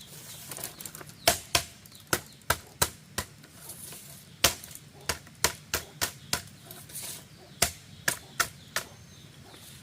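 Bamboo being cut or worked with a hand tool: sharp, separate strikes in quick runs of three to five, about three a second, with short pauses between the runs.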